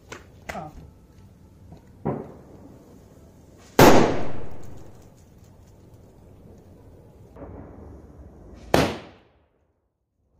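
Sukraa kuruvi firecrackers, large 5-inch single-bang crackers, going off: a smaller pop about two seconds in, a very loud bang near four seconds with a ringing tail, and a second sharp bang near the end.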